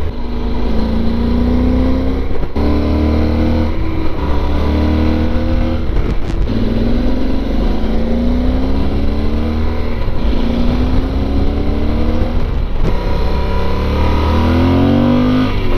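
Yamaha Super Tenere's 1200 cc parallel-twin engine through its stock exhaust, accelerating hard: the pitch climbs, breaks off and drops back several times, as through gear changes.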